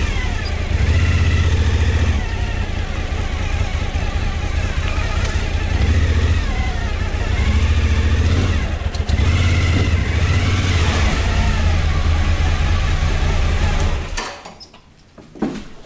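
2014 Suzuki V-Strom DL1000's V-twin engine running, revs rising and falling under the throttle. It stops about fourteen seconds in, leaving only a few small knocks.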